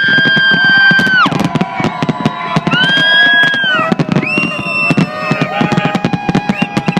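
Fireworks crackling and banging in rapid succession, with horns blowing held notes about a second long at different pitches, four or so in turn and sometimes overlapping.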